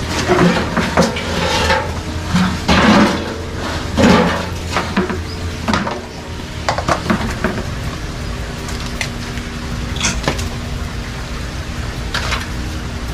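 Bamboo pole knocking and scraping against a metal chicken feeder and wire cages, a busy run of clattering knocks in the first half, then only a few scattered knocks.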